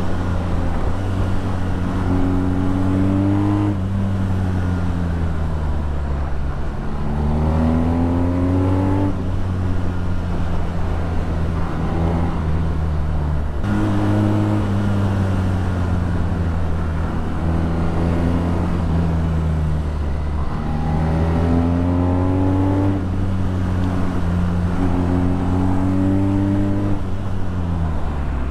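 BMW R nineT's 1170 cc boxer twin through an Akrapovič exhaust, under way: the engine note climbs in pitch as it accelerates, then drops suddenly several times as the rider shifts or closes the throttle, and settles into steady stretches between.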